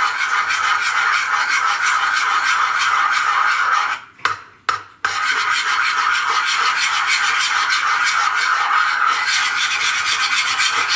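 Spoon scraping around a bowl as a salad dressing is stirred briskly: a continuous fast, even scraping, broken by a brief pause about four seconds in.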